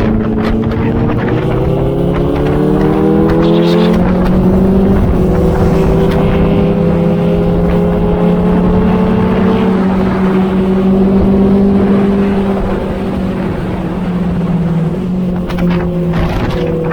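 Inline-four sport motorcycle engine running under way, its pitch climbing over the first few seconds and then holding fairly steady, with a couple of small drops in pitch later on.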